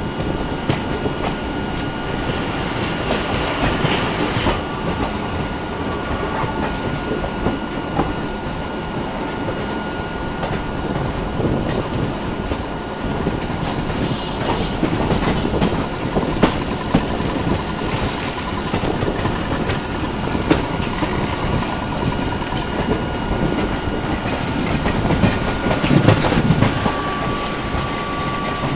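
Swaraj Express passenger train running on the track, heard from inside a coach: steady wheel-on-rail rumble with scattered sharp clicks of wheels over rail joints. A thin steady high tone comes in near the end.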